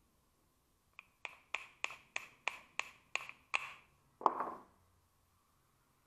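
Small hammer tapping on a metal door-lock part from an early Toyota Land Cruiser: about nine quick ringing taps at roughly three a second, then one heavier, lower-ringing blow.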